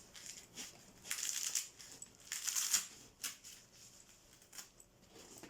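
Fabric of a soft cooler bag rustling and creaking as it is handled, in two main bursts with a few light clicks and knocks in between.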